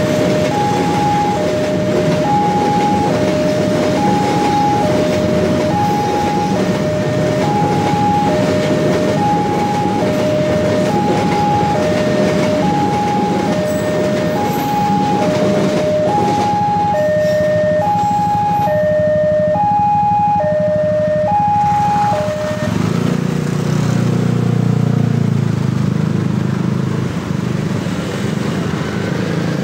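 Level-crossing warning alarm sounding an alternating two-tone electronic signal, about one high-low cycle a second, over the steady rolling clatter of a fuel tank-car train passing. The alarm stops about 22 seconds in, and motorcycle engines take over as traffic crosses the tracks.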